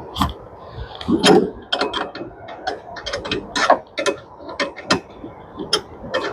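Ratchet wrench with an 8 mm socket working a nut on a washing machine's clutch adjustment, a run of sharp, irregular metallic clicks several times a second.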